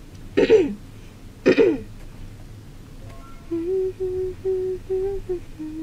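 A woman's voice making two short falling vocal sounds, then humming a run of short held notes at nearly one pitch, the last one a little lower.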